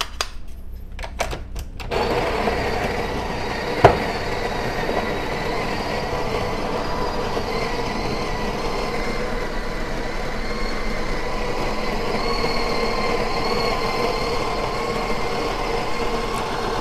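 Breville Barista Express built-in conical burr grinder running steadily, grinding a 19 g dose into the portafilter, after a few clicks as the portafilter is seated in the cradle, with one sharp knock about four seconds in. The owner finds this grinder has grown weaker and now needs a longer grind-amount setting for the dose.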